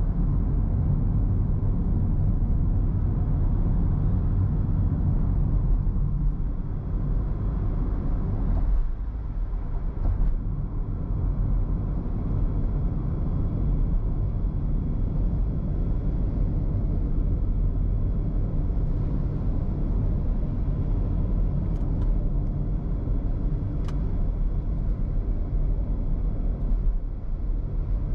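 Car driving along an expressway: a steady low rumble of road, tyre and engine noise, easing briefly about nine seconds in.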